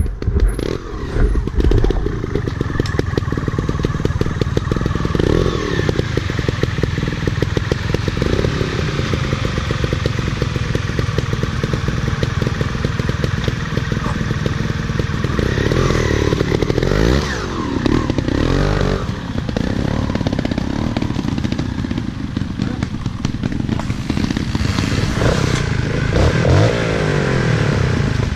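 Motorcycle engine running hard, its pitch rising and falling repeatedly as the throttle is worked, with rattling and clatter from the ride.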